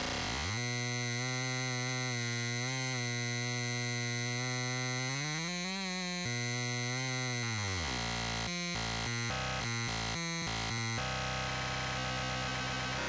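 MMXX T-APE synthesizer playing a buzzy electronic drone at a steady low pitch, which bends up and back down about five seconds in. Around eight seconds it breaks into a choppy stuttering pattern, and then it turns into a dense, noisy, grainy texture.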